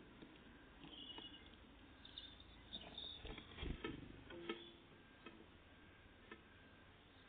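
Faint, irregular taps and knocks of tits at a peanut feeder, with a few short, high chirps.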